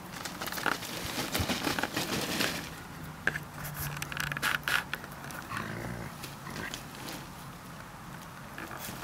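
Seven-week-old puppies playing rough with an adult dog: scuffling on grass with small play growls and grunts, and a longer low growl from about three to five seconds in.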